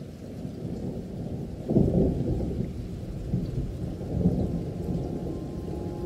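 Thunder rolling: a deep rumble that swells sharply about two seconds in, then twice more, more softly.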